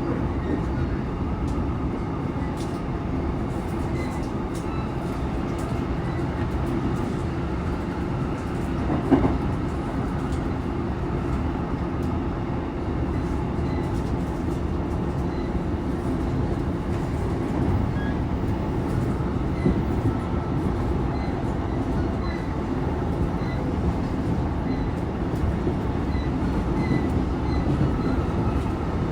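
Inside a JR East E233-3000 series electric multiple unit running at speed: steady rolling noise of wheels on rail and running gear, with one short louder knock about nine seconds in.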